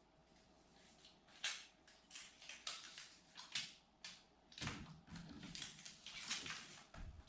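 Irregular scraping and rustling handling noises with a few sharp clicks, starting faint and becoming louder and denser after about four and a half seconds.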